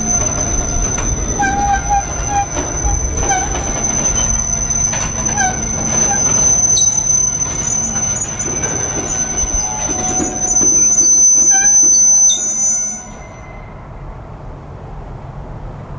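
Freight train rolling by with a loud rumble, its wheels letting out short high-pitched squeals over a steady high whine; the noise drops away sharply about 13 seconds in.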